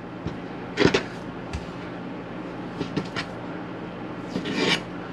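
Yanagiba slicing knife knocking against a plastic cutting board as a tuna loin is cut into sashimi slices: one sharp knock about a second in, a few fainter taps, and a short cluster near the end, over a steady low hum.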